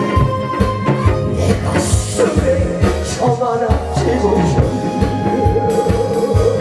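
An amplified song with a steady drum beat, a sung melody and held instrumental notes, played over a backing track through a PA.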